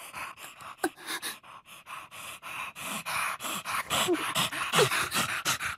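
Dog panting quickly and evenly, growing louder toward the end.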